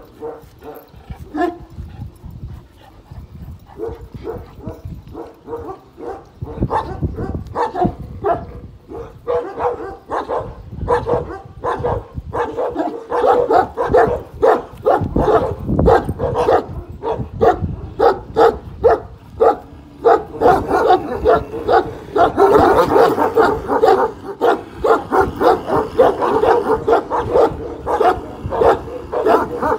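Kangal shepherd dogs barking over and over, about two or three barks a second. The barking grows louder about halfway through and is loudest in the last third.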